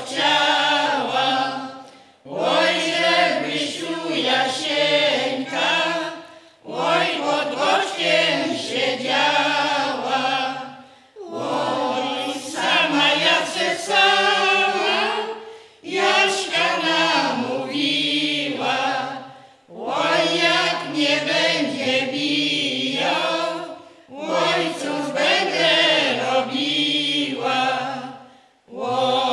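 Polish village folk ensemble of women and men singing a folk song in unison, unaccompanied, in phrases of about four seconds with a short pause for breath between each.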